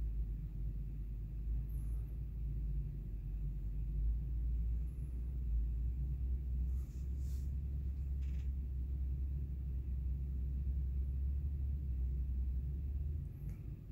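A steady low rumble, with two faint clicks about seven and eight seconds in; the rumble drops away near the end.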